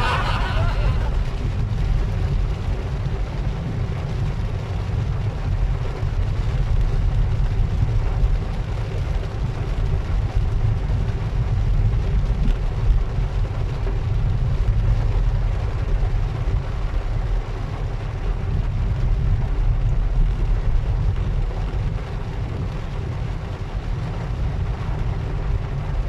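Heavy tropical downpour as a steady rush of rain, under a constant low rumble.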